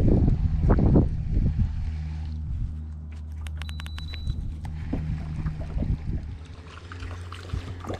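Baitcasting reel being cranked to retrieve a lure, with handling bumps in the first second or so and a quick run of sharp clicks about three and a half seconds in, over a steady low hum from the jon boat.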